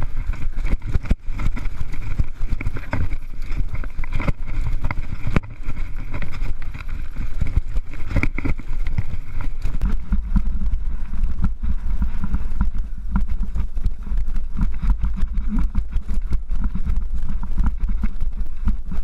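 Mountain bike riding over a rough, rocky trail, heard from a camera on the rider: wind rumbling on the microphone with a constant rattle and clatter of the bike over stones.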